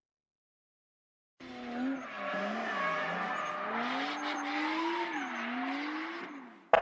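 Car engine revving up and down with tyres squealing, as in drifting, starting about a second and a half in and fading away near the end, followed by a sharp hit at the very end.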